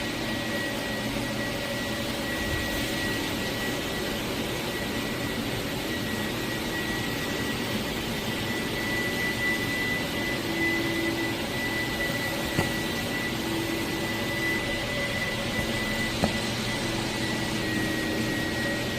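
A machine motor running steadily, with a constant high whine over an even hiss.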